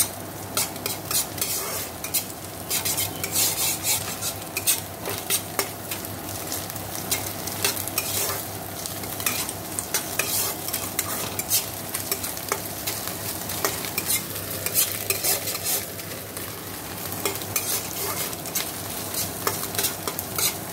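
A spatula scraping and tapping against a non-stick kadai as scrambled egg with onion and chilli is stirred, the oil sizzling under it. The clicks and scrapes come irregularly, several a second, over a faint steady hum.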